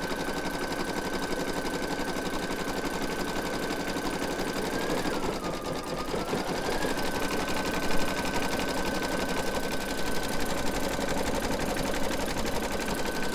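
Embroidery machine stitching free-standing lace: a rapid, even needle chatter over a steady high motor whine, which dips briefly in pitch about halfway through. A single sharp click stands out about eight seconds in.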